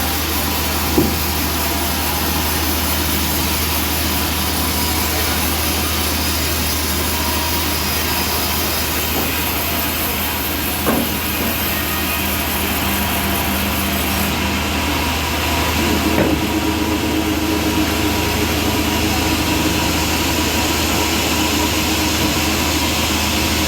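Band sawmill running steadily, its engine and blade sawing a trembesi log lengthwise into slabs. Two short knocks come about a second in and about eleven seconds in, and the sound grows fuller about sixteen seconds in.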